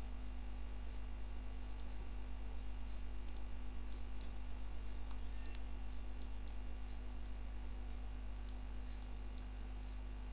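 Steady electrical mains hum, with a few faint clicks about five to six and a half seconds in.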